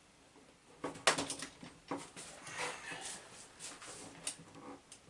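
Faint clicks and knocks from hands handling and seating the body shell of a large RC monster truck, a small cluster of them about a second in.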